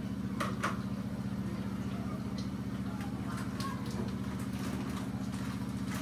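A steady low mechanical hum, with a few light clicks and clinks of dishes and utensils being handled about half a second in and again about three seconds in.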